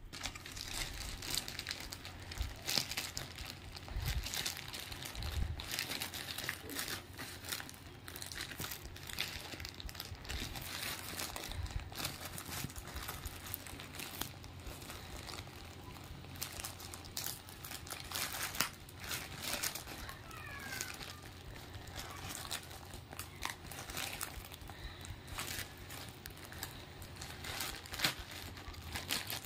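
Plastic courier mailer bag crinkling as hands grip, press and tug at it, with irregular crackles throughout.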